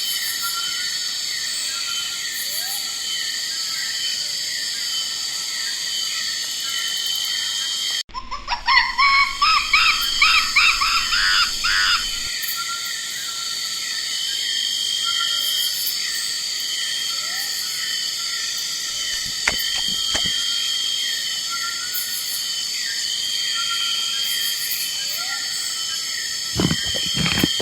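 Forest ambience with a dense, steady insect chorus and repeated chirping calls. About eight seconds in, after an abrupt cut, a loud burst of animal calls lasts about four seconds.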